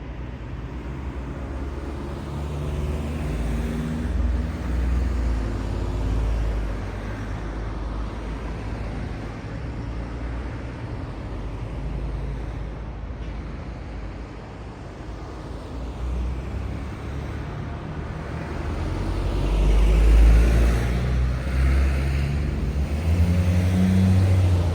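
Road traffic through an intersection: car and truck engines and tyres passing one after another, swelling and fading, with the loudest passes about 20 seconds in and near the end.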